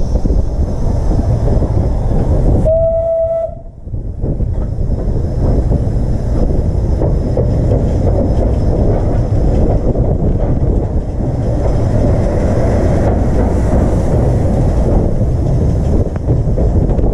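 Taff Vale Railway No.85 steam locomotive running along the line, heard from the footplate as a loud, dense rush of wheel, motion and wind noise. About three seconds in comes one short, steady whistle blast of under a second.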